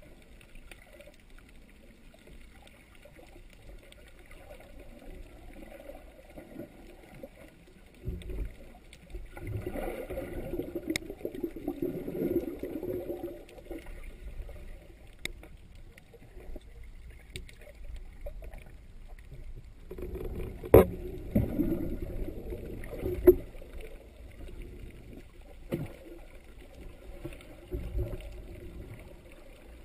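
Muffled underwater water noise heard through a GoPro Hero2's sealed dive housing: low sloshing and rumbling that swells twice, with a few sharp knocks near the middle.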